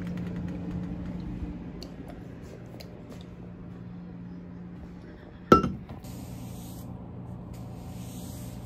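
Faint clicks from a door handle and latch and soft steps. About five and a half seconds in comes one sharp clink with a short ring as something hard is set down, over a low steady hum.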